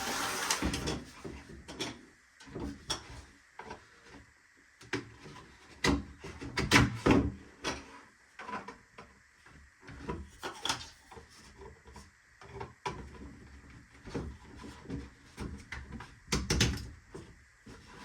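3D-printed plastic parts being handled and pushed together: irregular clicks, knocks and short scrapes of plastic on plastic, with a few louder clusters.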